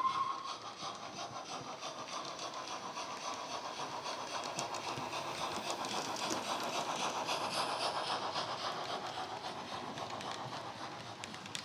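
DCC sound decoder in a Hornby LNER W1 'Hush Hush' model locomotive playing quick, even steam-exhaust beats through its speaker as the train runs past, mixed with wheel noise on the track. A whistle cuts off just at the start. The sound grows to its loudest as the locomotive passes, then fades as the coaches follow.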